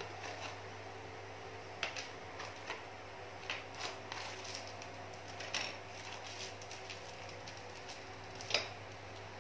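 Plastic-bagged action-camera accessories being pulled out of a cardboard box and set down on a table: scattered crinkles, clicks and light knocks, the sharpest one near the end, over a steady low hum.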